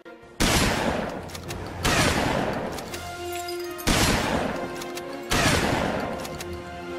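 Four loud bangs about a second and a half apart, each dying away over a second or so, over a music soundtrack.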